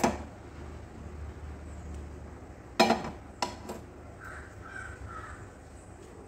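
Crows cawing: one loud harsh caw about three seconds in, two shorter ones just after, and fainter calls a second later, over a low steady hum. There is a sharp knock at the very start.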